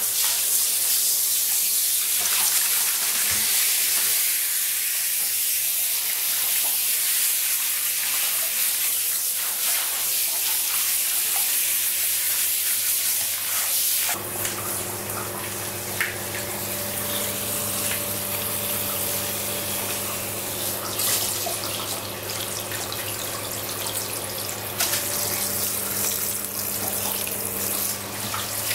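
Handheld shower spraying water onto a small dog in a plastic washtub, a steady hiss of running water. About halfway through the hiss drops and a steady low hum comes in under the water.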